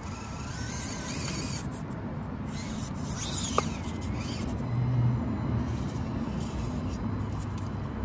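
Axial SCX24 B-17 Betty 1/24-scale micro crawler's small electric motor and gear train running steadily as the truck crawls over a log. A single sharp tick comes about three and a half seconds in.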